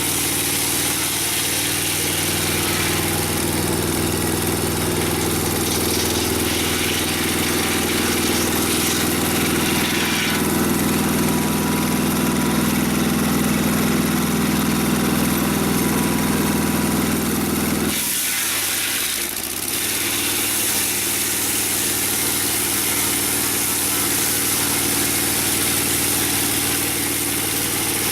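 Mobile Dimension sawmill's gasoline engine running steadily. It is a little louder and heavier for several seconds in the middle, then breaks off abruptly for a moment about two-thirds of the way through and carries on.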